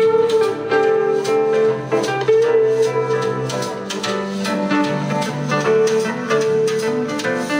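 Music with guitar playing over a hi-fi system's loudspeakers, fed through a graphic equalizer.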